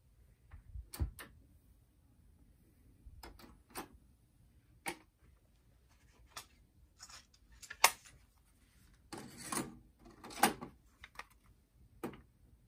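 Tascam 103 cassette deck being handled: front-panel buttons clicking, the cassette door opening, a tape going in and the door pushed shut. It comes as a string of separate clicks and clunks, the loudest about eight and ten and a half seconds in.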